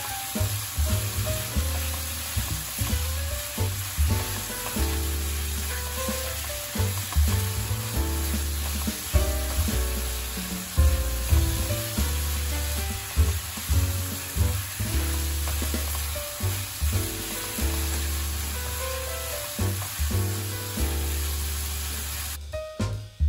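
Sliced zucchini and beech mushrooms sizzling in hot oil in a frying pan, with a spatula scraping and knocking against the pan as they are stirred. The sizzle drops away near the end.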